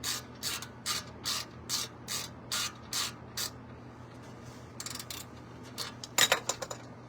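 Hand ratchet wrench clicking in quick regular strokes, about two and a half a second, as a front brake caliper bolt on a Ford F-150 is run down; the strokes stop about halfway, followed by a few louder, sharper clicks near the end.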